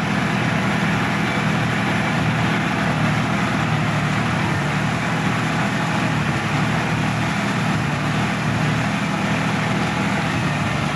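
Sonalika DI-50 RX Supreme tractor's diesel engine running steadily, heard from the driver's seat.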